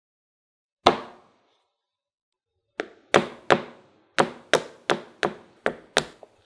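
A ceramic bowl knocks once as it is set down on a cloth-covered wooden board, then a metal spoon taps nine times, about three a second, on a hardened chocolate shell, cracking it open.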